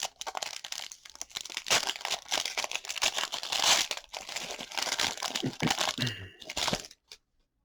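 Trading-card pack wrapper being torn open and crinkled by hand, with dense, rapid rustling that stops abruptly about seven seconds in.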